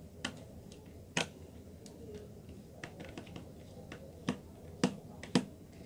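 Scattered sharp clicks and taps from hands working wires into the screw terminals of a plastic magnetic contactor, with a few louder knocks about a second in and near the end.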